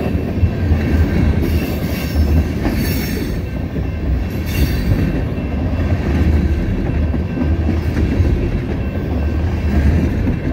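Tank cars of a long freight train rolling past close by: a steady, loud rumble of steel wheels on the rails.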